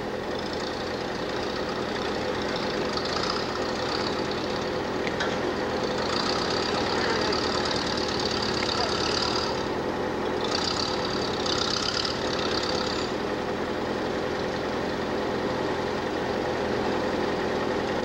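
Engine of a tracked log loader running steadily as it moves in to pick up a log, with a higher-pitched sound coming and going in the middle. The sound cuts off suddenly at the end.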